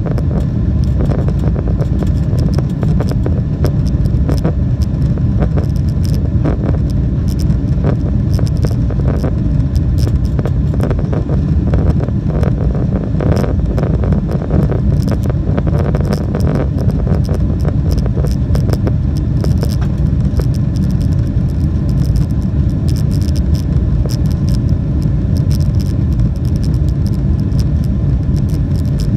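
Jet airliner's engines at takeoff power, a loud steady rumble heard from inside the cabin, with many short rattles from the cabin fittings as it rolls and climbs.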